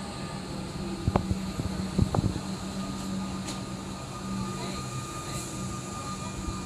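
Comeng electric multiple-unit train arriving at a platform, its carriages running past close by with a steady hum. A few sharp knocks come about one and two seconds in.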